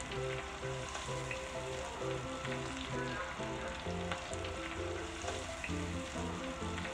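Cornmeal-breaded shrimp deep-frying in hot oil in a skillet: a dense, steady sizzle full of small crackles and pops, with a slotted skimmer stirring through the oil. Background music with a steady beat runs underneath.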